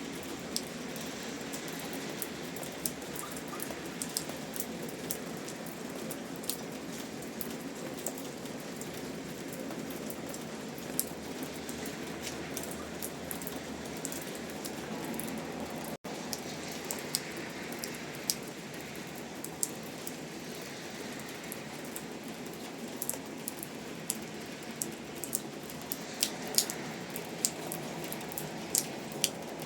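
Steady rain falling, a constant hiss with many sharp individual drops ticking on a nearby surface. The sound cuts out for an instant about halfway through.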